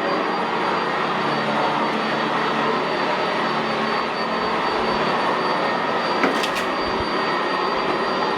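Sanitaire SC679J commercial upright vacuum running steadily over carpet, a constant motor rush with a thin high whine.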